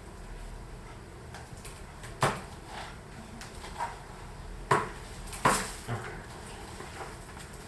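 Several sharp clicks and knocks during a hands-on chiropractic adjustment: one loud one about two seconds in, then two more close together just before the middle, with a few fainter ones between.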